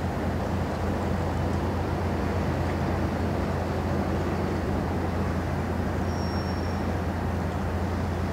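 Large ship's engines giving a low, steady drone over a wash of harbour noise, with a brief faint high whistle about six seconds in.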